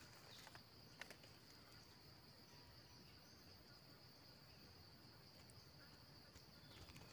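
Faint, steady, high-pitched drone of insects, with a small click about a second in.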